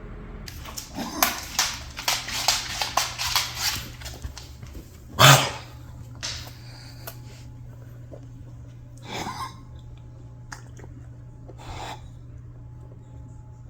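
A pet's nose-cough fit: a rapid run of sharp bursts of air through the nose, about four a second for some four seconds. Then comes one louder burst, and a few scattered single ones after it.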